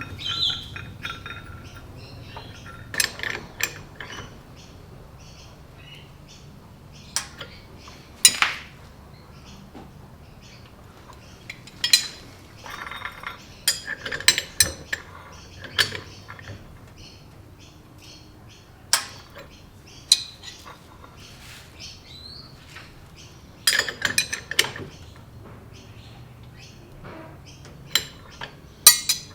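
Scattered sharp metallic clinks and taps of tools and turbocharger parts being handled during the turbo rebuild, with clusters around the middle and near the end. Birds chirp over and over in the background.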